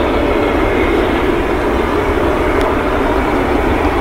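Jet engines of a Qantas Boeing 787-9 running as the airliner rolls along the runway: a loud, steady rumble with no breaks.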